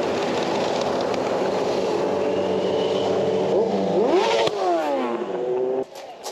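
Harley-Davidson Pan America's V-twin engine running at road speed with wind rush; a little past halfway it revs up sharply, then the revs wind down. The sound cuts off abruptly near the end.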